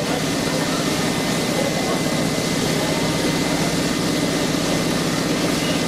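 A heavy engine idling with a steady low drone.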